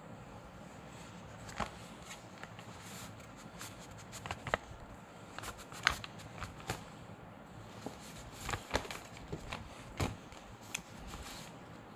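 Paper gift bag and card rustling and crinkling as they are handled, in scattered short crackles and taps, the loudest near the middle and again near the end.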